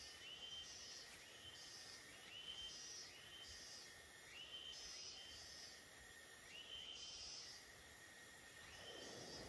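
Faint animal call repeating about once a second: a steady tone that steps up in pitch and holds briefly, over a soft even hiss.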